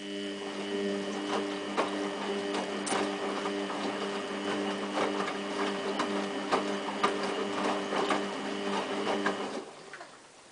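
Samsung WF8804RPA washing machine running in its final rinse: a steady hum with water sloshing and clicking over it. It starts abruptly and cuts off about nine and a half seconds in.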